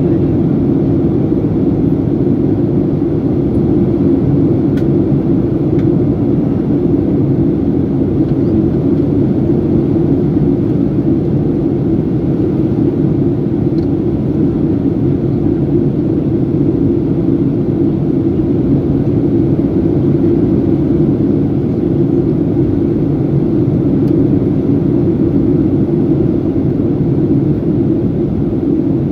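Steady cabin noise inside a Boeing 737-800 in flight: its CFM56-7B jet engines and the airflow over the fuselage as a constant low drone.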